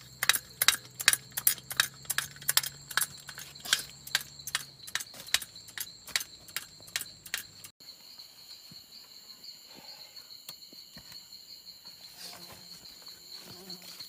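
Insects trilling, a steady high-pitched chorus. Over the first half runs a dense string of irregular sharp clicks and crackles; about halfway the sound cuts abruptly to a quieter stretch where the high trill carries on alone.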